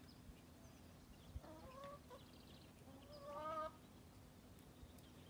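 Two faint, drawn-out wavering calls from a domestic hen, the first about a second and a half in and the second, longer and a little louder, about three seconds in.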